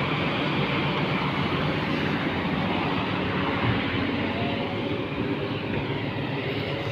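Kobelco SK350 hydraulic excavator's diesel engine running steadily as the machine holds and eases a heavy precast concrete U-drain section into place.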